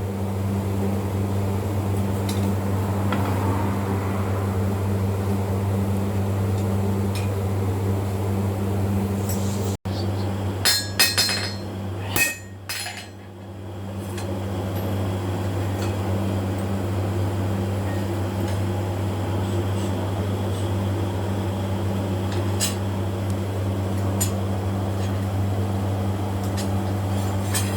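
Steady low hum of a running machine, with a cluster of sharp metal clinks and taps about ten to thirteen seconds in and a few faint taps near the end.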